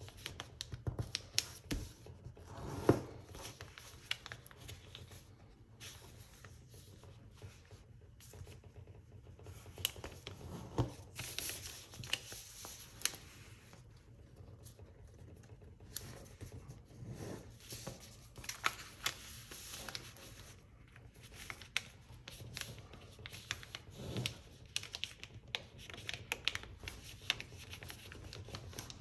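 A sheet of paper being folded by hand into a paper airplane on a tabletop: rustling and crinkling as it is turned and creased, with short scrapes of fingers running along the folds. There is a louder knock about three seconds in.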